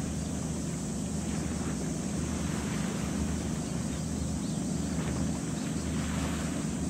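Steady low drone of a ship's diesel engine, with wind and water noise over it.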